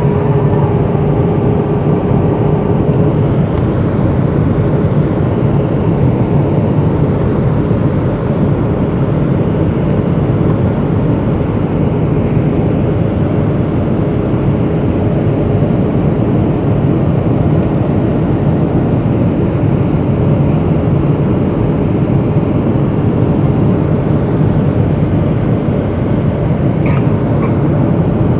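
Steady cabin roar of a Boeing 757-200 on approach, engine and airflow noise heard from a seat over the wing. A faint whine in the first few seconds, as the flaps extend further, fades out.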